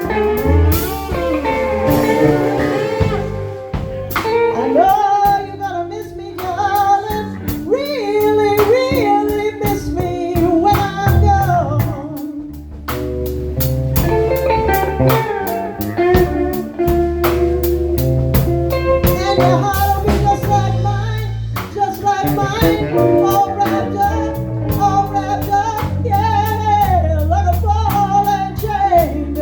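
Blues band music: guitar, bass and drums keeping a steady beat under a lead melody line that bends up and down.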